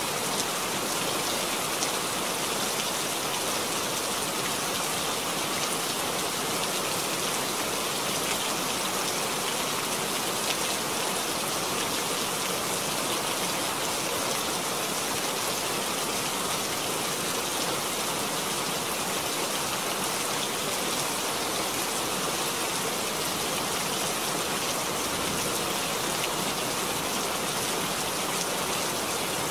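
Steady rain falling, an even wash of many drops that holds at the same level throughout.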